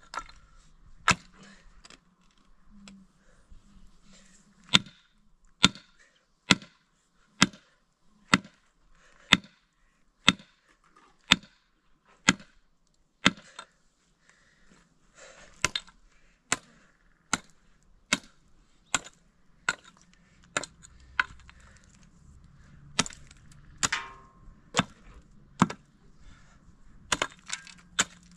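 Pickaxe blows into stony, rocky ground: a long series of sharp strikes, about one a second, with short pauses.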